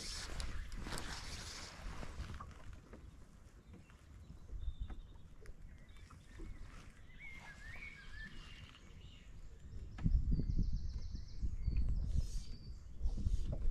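Wind buffeting the microphone over open water, getting much louder from about ten seconds in, with a few short bird chirps in the quieter middle.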